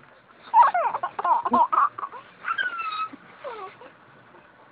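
A baby whimpering and squealing: a run of short, high cries that slide up and down in pitch, then a few weaker ones about two and a half seconds in.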